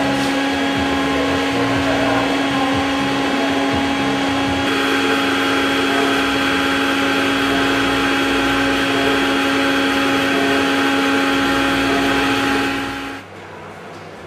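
Steady machine noise from a running motor, a loud even whir with a constant hum underneath. It changes slightly about five seconds in and cuts off abruptly near the end.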